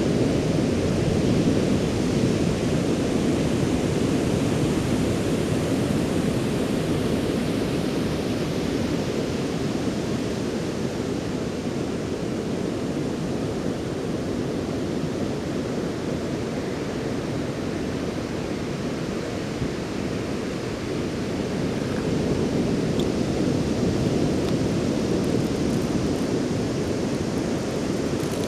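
Ocean surf washing onto a beach, a continuous low rush that swells and eases slowly.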